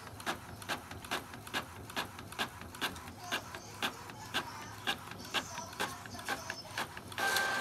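Epson ET-2750 EcoTank inkjet printer printing a page: a regular click about three times a second as the print head carriage sweeps back and forth, over a steady mechanical hum. A louder whir comes near the end.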